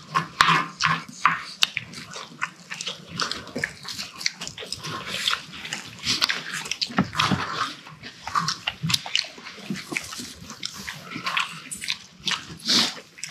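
Close-up chewing and lip-smacking of a mouthful of rice and spicy pork wrapped in laver: an irregular run of wet, clicky mouth sounds.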